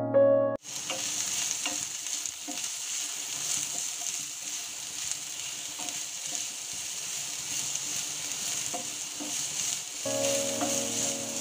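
Sliced onions sizzling as they fry in oil in a non-stick pan, stirred with a wooden spatula, with a few faint taps and scrapes. Soft piano music plays briefly at the start and comes back near the end.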